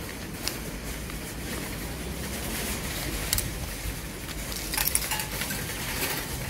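Wire shopping cart with a coin lock being pulled out of a row of nested carts: a few scattered metal clinks and rattles over steady background noise.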